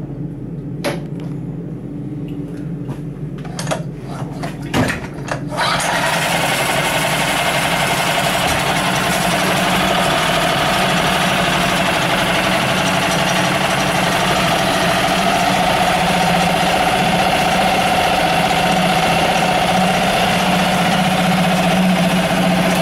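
Yamaha F5 single-cylinder four-stroke outboard running steadily in a test tank, with a few clicks in the first seconds. About five seconds in it gets louder, then holds an even run as it burns off the fuel left after the fuel tap is shut.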